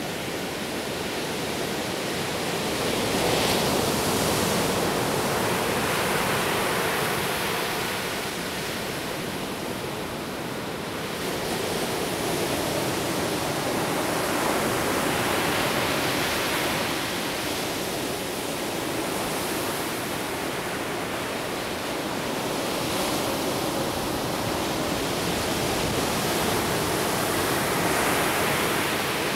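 Ocean surf breaking and washing up a sandy beach, a steady rush that swells and eases in slow surges every several seconds.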